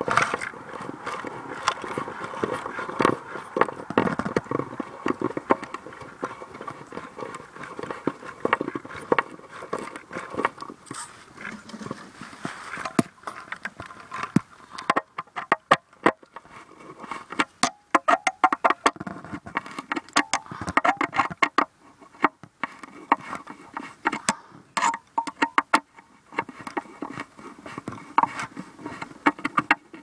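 Irregular clicking, knocking and scraping as a screw is worked into a tree trunk to mount a birdhouse.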